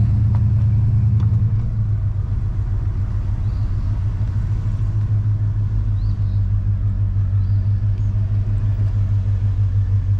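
Chevrolet Suburban running at low speed: a steady low engine and road drone whose loudness pulses evenly in the second half.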